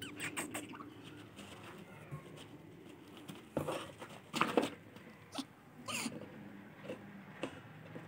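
African grey parrot chick moving about in a cardboard box lined with wood shavings: irregular short scratching and rustling sounds, loudest around the middle.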